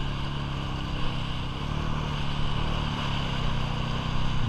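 Polaris ATV engine running steadily at low revs while the quad sits stuck in deep mud, swelling slightly a couple of times without revving hard.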